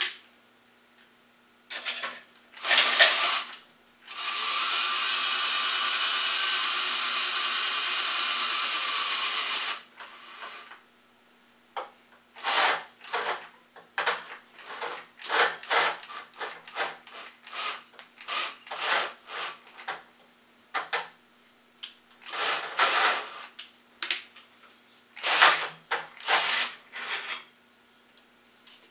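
Ryobi cordless drill running steadily for about five seconds, then worked in many short bursts on the trigger.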